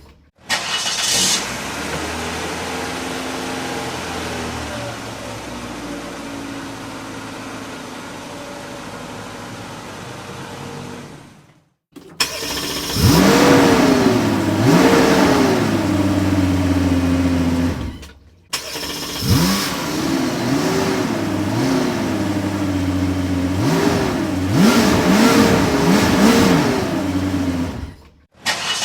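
Car engine sound effects in three separate takes with short silent breaks between them. In the first, the engine runs steadily for about eleven seconds. In the second and third, it is revved up and down several times in quick blips.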